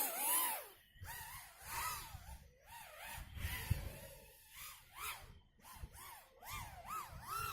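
Three-inch FPV racing quadcopter with RS1407 4100 kV brushless motors and three-blade props, its motor and prop whine swooping up and down in pitch over and over with throttle changes in flight.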